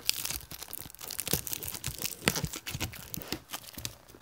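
Plastic wrapping being peeled and torn off a cardboard box, with irregular crinkling and crackling and a few louder snaps.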